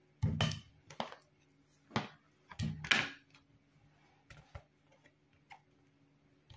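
Peeled orange slices dropped by hand into an empty stainless-steel saucepan: four or five soft thuds in the first three seconds, then a few faint knocks. A faint steady low hum runs underneath.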